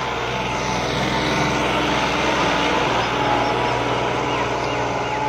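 New Holland 5620 tractor's diesel engine running steadily under load, pulling a disc harrow through wet soil in second gear.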